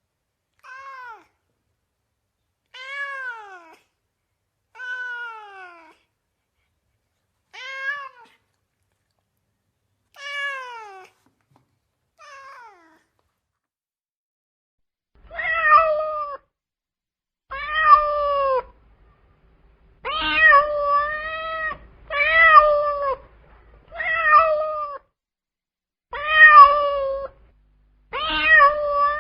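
A cat meowing repeatedly. First come about six fainter meows, each falling in pitch. From about halfway the meows turn louder and level in pitch, coming about every two seconds.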